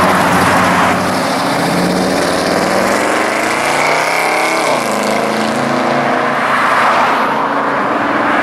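1970 Chevrolet Chevelle SS's V8 accelerating away, its note rising for a couple of seconds, dropping at an upshift about five seconds in, then pulling on steadily.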